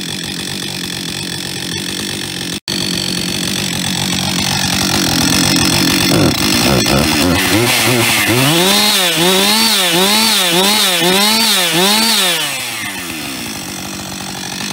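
Husqvarna 562 XP two-stroke chainsaw engine idling, then revved in about six quick blips before dropping back to idle. It makes the loud rattling noise that the owner suspects is piston slap from a worn piston.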